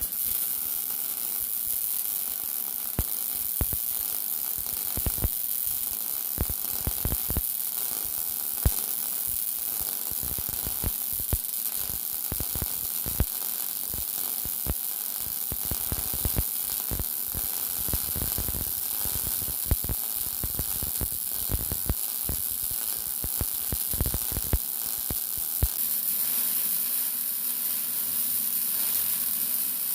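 Electric arc welding: a steady sizzling hiss studded with dense crackling pops. About 25 seconds in the crackle thins and the hiss goes smoother.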